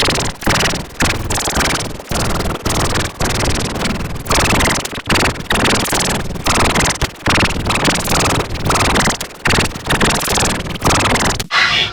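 Heavily distorted, effect-processed audio: harsh noisy sound chopped into rapid stuttering fragments, with many brief cutouts.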